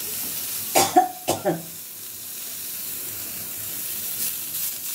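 A person coughs in a short run about a second in, over the steady sizzle of fresh coriander leaves frying in a small pan on a gas burner.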